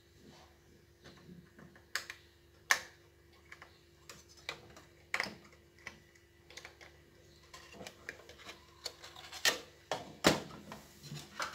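Irregular clicks and knocks of hands handling an LCD TV's power-supply circuit board, the board tapping against the metal chassis and parts as it is worked loose and lifted, with the loudest knocks near the end. A faint steady hum runs underneath.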